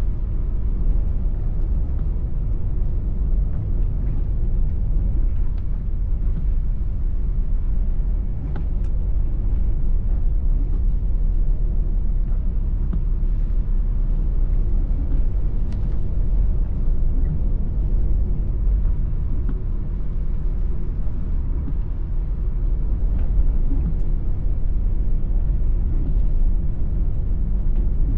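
Steady low rumble of a car driving on wet roads, engine and tyre noise heard from inside the cabin, with a few faint ticks.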